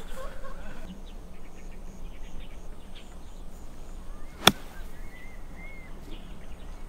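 A golf club strikes the ball once, a single sharp click about four and a half seconds in, on a short approach shot of about 50 yards.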